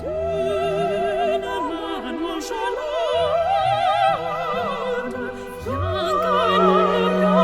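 Background music: an operatic voice singing long held notes with wide vibrato over orchestral accompaniment.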